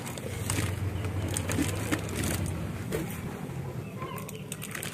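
Handling noise from a plastic-wrapped toroidal transformer being picked up and moved by hand: scattered light clicks and crinkles, over a steady low background hum.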